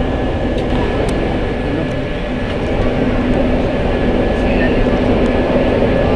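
Madrid Metro Line 5 CAF train running between stations, heard from inside the carriage: a steady rumble of wheels on rail with a steady motor hum and a thin high tone, growing a little louder about three seconds in.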